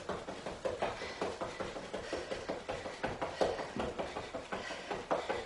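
Quick feet drill: fast, light footsteps of sneakers on an exercise mat laid over a rug, several soft thuds a second in an even run.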